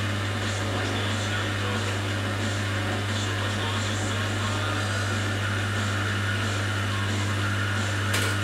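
Steady electrical hum and drone of household appliances running together, with a hiss over it and faint regular ticking. A sharp click comes near the end.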